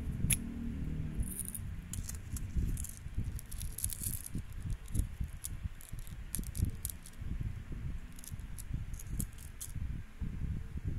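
Close handling of small toy packaging: scattered light clicks, crinkles and rattles from a small plastic packet and a bead chain, with frequent dull bumps of hands against the table.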